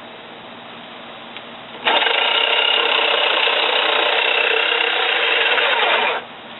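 Electric jigsaw cutting a 45-degree miter in wood, its blade guided through slots in a plywood jig. The saw starts suddenly about two seconds in, runs steadily for about four seconds, and stops abruptly.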